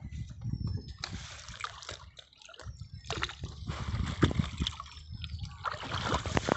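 Shallow muddy water sloshing and splashing as a bamboo-framed push net is worked and lifted through it by a wader, in irregular bursts that grow louder about halfway through.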